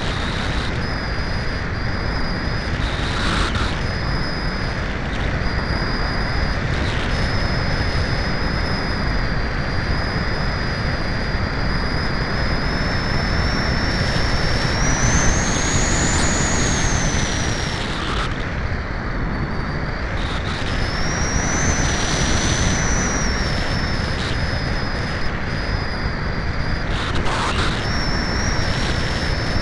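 Wind rushing over the microphone of a keychain camera carried on a Cularis RC glider in flight, a steady heavy rumble. Above it a thin high whine drifts in pitch, rising and falling again around the middle and cutting out briefly a couple of times.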